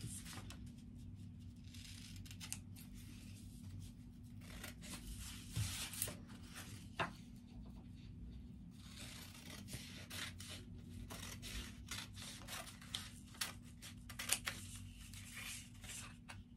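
Scissors cutting through a sheet of paper, a faint run of short, irregular snips with some paper rustling as the sheet is handled.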